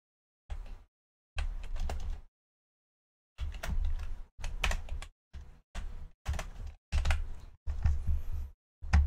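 Computer keyboard typing in short bursts of keystrokes, with brief pauses between the bursts; the last burst, near the end, is the loudest.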